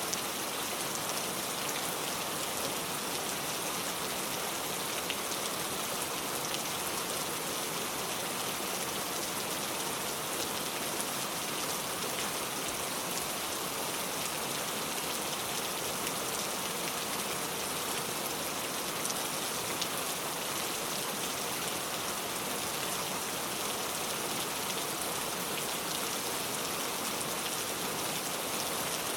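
Steady rain falling, an even hiss with the fine patter of individual drops and no thunder.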